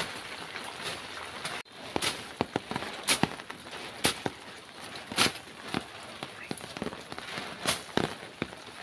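Rain in dense foliage: a steady hiss with irregular sharp ticks and cracks close by. The sound cuts out for an instant about a second and a half in.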